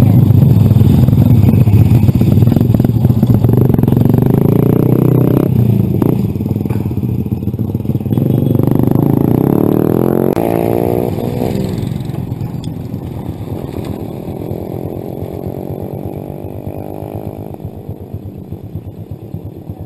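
Motorcycle engine running while riding. The engine note rises between about 8 and 11 seconds in, then the sound eases down over the last several seconds as the bike slows to a stop.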